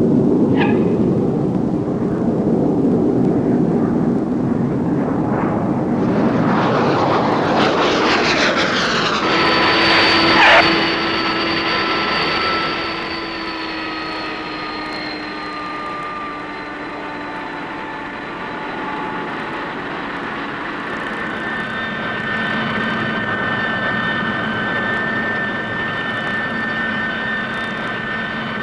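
McDonnell F2H Banshee twin-jet fighter's turbojets: a loud jet rush building over the first several seconds, a sharp crack about ten seconds in, then a high whine that slowly drops in pitch and settles to a steady whine.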